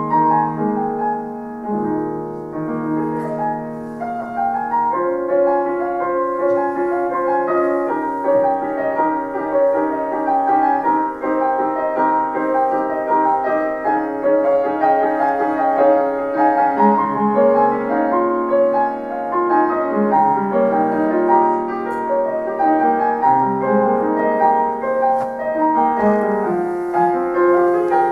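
Grand piano played solo: a piano arrangement of a pop song, with chords in the lower notes under a melody line.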